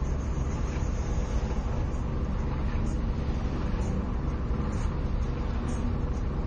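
Steady low rumble of idling and slow-moving road traffic, heard from inside a car's cabin.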